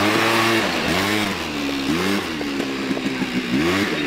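Quad bike engine revving up and down over and over as it is ridden, its pitch rising and falling every second or so.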